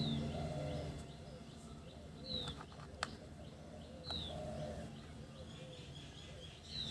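Birds calling: a short, falling high chirp repeats every two seconds or so over softer, lower calls. A low hum fades out in the first second, and a single sharp click comes about three seconds in.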